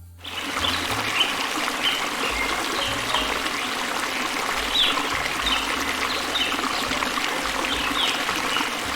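Running water, a steady rushing trickle, with short high chirps recurring over it every second or so.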